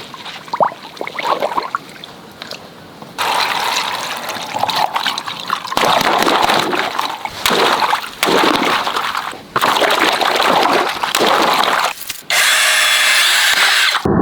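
Water rushing into a stretchy toy as it is filled, in several short segments that cut in and out abruptly, after about three seconds of faint handling clicks.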